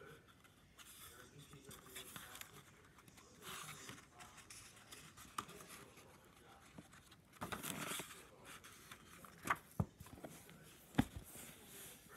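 Faint rustling and scraping as a hardcover book and a bedsheet are handled, with a few short knocks near the end.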